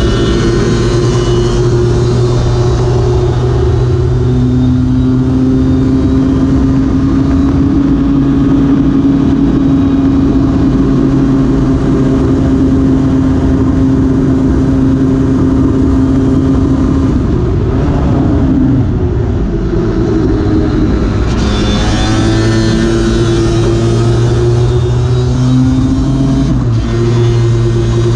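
Lambretta scooter's two-stroke racing engine running hard at high revs, heard from onboard under steady wind rush. A little past halfway the revs fall away and waver for a few seconds, then climb again.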